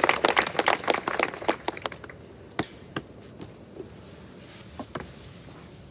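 Audience clapping, dense at first and dying away about two seconds in, then a few scattered claps.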